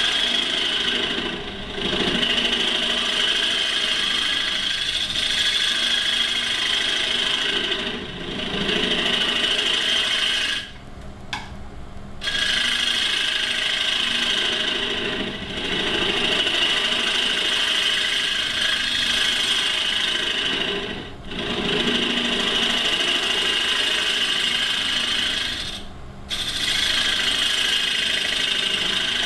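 Turning tool cutting into a spinning mahogany spoon blank on a wood lathe, hollowing the bowl of the spoon: a steady scraping, shaving noise in passes of several seconds. The cut breaks off briefly about six times as the tool lifts away, the longest break about a third of the way in.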